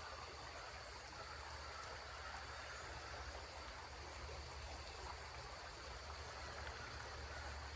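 Faint, steady flow of a small creek.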